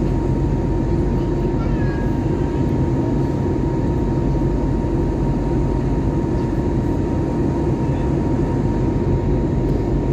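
Steady in-flight cabin noise of an Airbus A321neo with Pratt & Whitney PW1100G engines: a dense, even low rumble with a thin steady whine above it.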